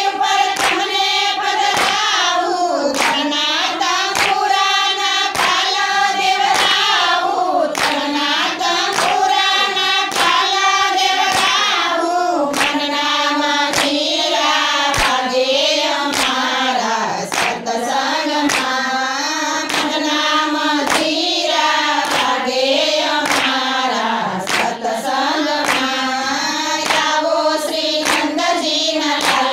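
A group of women singing a Gujarati devotional bhajan together, unaccompanied, clapping their hands in a steady beat.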